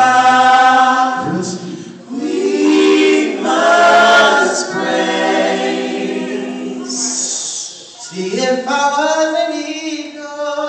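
Male vocal group singing a cappella in close harmony, holding long chords with short breaks between phrases.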